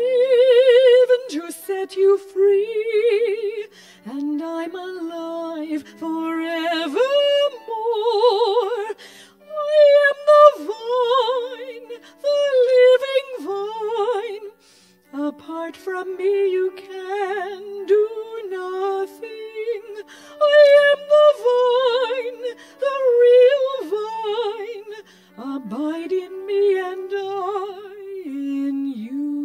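Music: a woman's voice singing a slow melody in phrases with wide vibrato, over a soft sustained low accompaniment.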